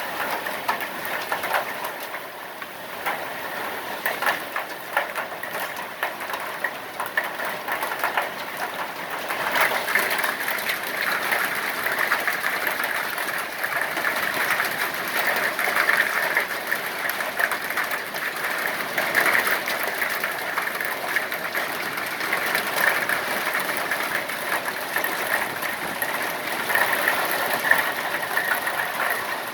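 Hailstorm: a dense, continuous rattle of hailstones striking hard surfaces, growing heavier about nine seconds in.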